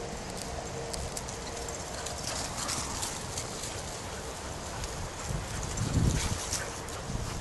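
Footsteps swishing through grass as a person walks, with scattered crackles and a few low thuds about six seconds in.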